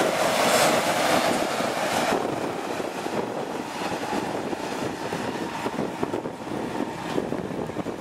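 Heavy harvest machinery running: a tractor and tracked grain cart working in the field, giving a steady mechanical noise that eases slightly about two seconds in.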